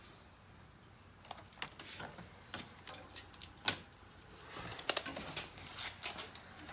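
Irregular light clicks and taps of hands handling small objects, a dozen or so scattered unevenly, none of them loud.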